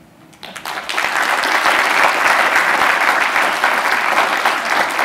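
Audience applauding after a talk: a dense patter of many hands clapping that starts about half a second in, builds quickly and holds steady.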